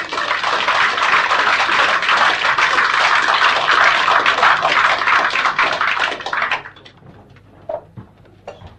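Audience applauding: dense clapping that stops fairly suddenly about two-thirds of the way through, leaving a few faint knocks.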